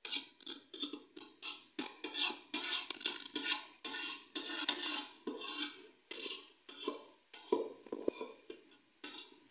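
Steel ladle scraping and stirring shredded cabbage in an aluminium cooking pot, in quick irregular strokes.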